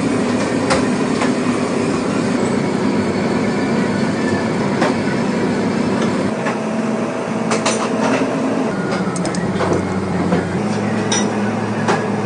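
Steady machinery noise of a commercial kitchen with a low hum, typical of extraction fans, and scattered clicks and knocks from knife and utensil handling.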